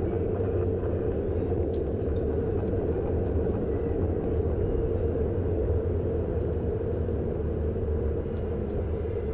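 Steady rumble of wind on the microphone and tyre noise from a bicycle rolling along an asphalt bike lane, with a few faint ticks.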